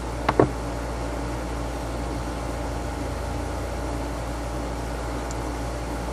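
Steady low hum and hiss of room noise, with two sharp clicks in quick succession near the start.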